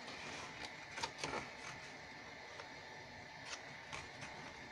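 Faint, scattered taps and rustles of heavy cardstock and a plastic glue bottle being handled, a few light clicks over a steady background hiss.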